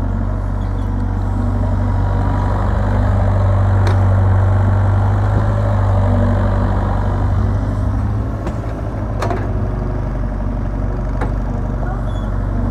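Mini excavator's diesel engine running steadily under load as it digs into soft soil, with a strong low hum. Three sharp knocks come through, about four, nine and eleven seconds in.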